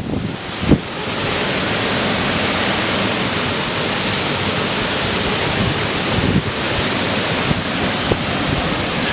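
Hurricane wind: a steady loud rushing noise, with wind buffeting the microphone, and a short thump near the start.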